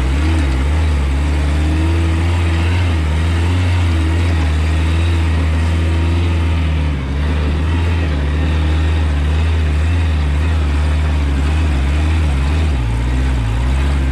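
Off-road buggy's engine running steadily as it drives along a dirt track, a loud low drone that dips briefly about halfway through.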